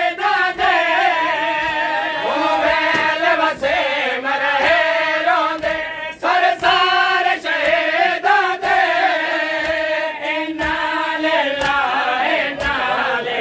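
A group of men chanting a noha, a Shia lament, together in unison, with sharp chest-beating slaps (matam) about once a second keeping the beat.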